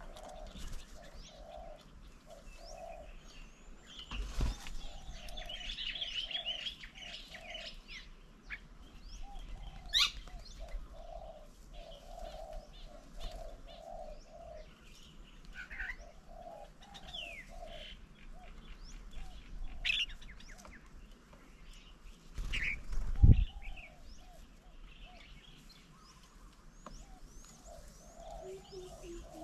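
Doves cooing in a long run of low, evenly repeated notes, with other small birds chirping and whistling higher up. Two low thumps are heard, one a few seconds in and a louder one about two-thirds of the way through.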